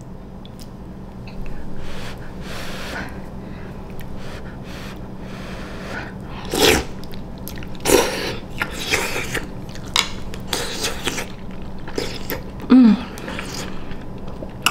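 A person slurping Samyang Buldak spicy ramen noodles: several loud, sharp slurps about a second apart in the middle, with chewing between them and a short, loud vocal sound near the end.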